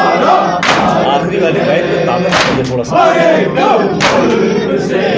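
Matam: a group of men slapping their chests in unison to a slow beat, three sharp claps of hand on chest about a second and a half apart. Between the strikes the group's voices chant the noha.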